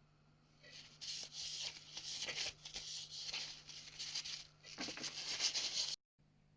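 Rough scraping hiss in several strokes of roughly a second each, with short pauses between them, starting a little under a second in and cutting off abruptly near the end.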